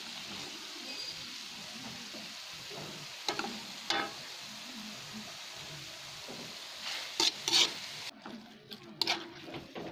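Laing, taro leaves cooked down in coconut milk, sizzling steadily in a wok while a metal spoon stirs and scrapes it. A few sharp clinks of the spoon against the pan come around three to four seconds in and again near the end. The sizzling cuts off suddenly about eight seconds in.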